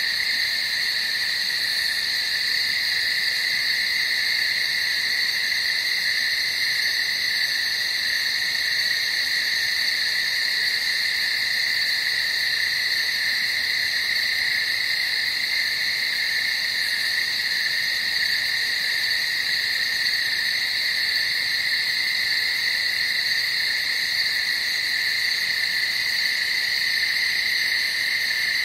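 Steady night-time animal chorus: a shrill, high, unbroken ringing that holds the same pitch and level throughout.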